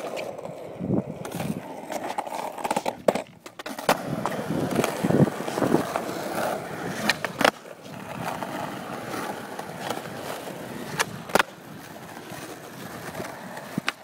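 Skateboard wheels rolling over rough asphalt, a steady rumble, cut by sharp wooden cracks of the board's tail popping and landing during flat-ground tricks: a cluster about three seconds in, then single loud cracks about halfway and near the end.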